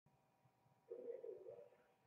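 Near silence: a faint steady hum, with a brief faint low sound about a second in.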